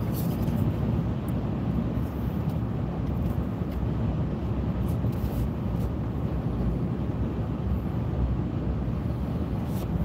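Steady low road and engine noise inside a moving car's cabin.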